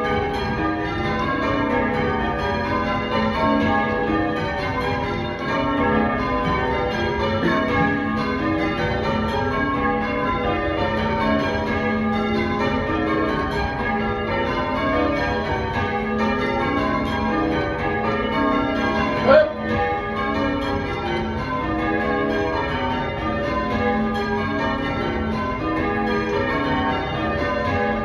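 Church tower bells rung in changes: a steady, even stream of overlapping strikes. A brief sharp sound stands out about two-thirds of the way through.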